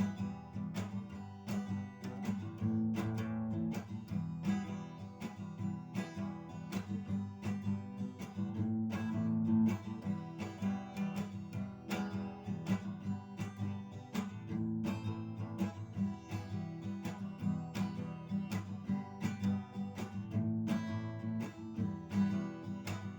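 Acoustic guitar strummed in a steady rhythm: the instrumental break between the chorus and the second verse, with no singing.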